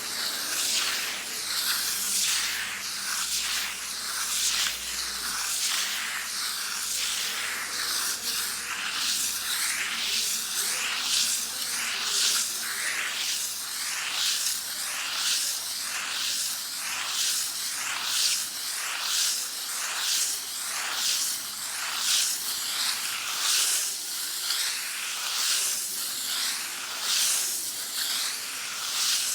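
Sandpaper rubbed back and forth against a wall in steady repeated strokes, a dry hissing scrape with each pass.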